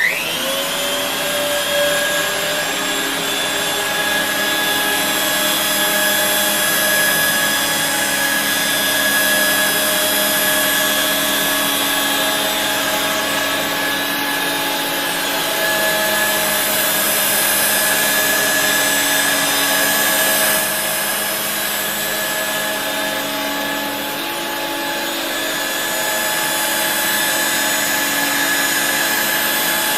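1985 Regina Electrikbroom PowerTeam stick vacuum switched on, its motors spinning up with a rising whine and then running steadily. The level dips slightly and the tone shifts a little about two-thirds of the way through.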